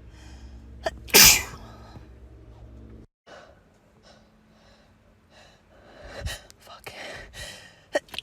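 A woman sneezing hard in a sneezing fit: one loud sneeze about a second in, then quieter gasping breaths that build up to another sneeze breaking at the very end.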